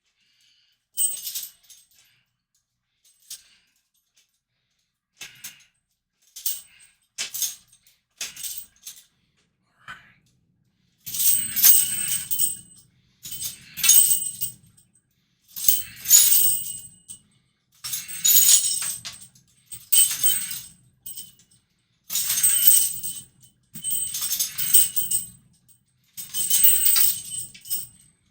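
Metal chains on a barbell jangling as it is worked: a few light clinks at first, then from about eleven seconds in a jangling burst roughly every two seconds, one per repetition.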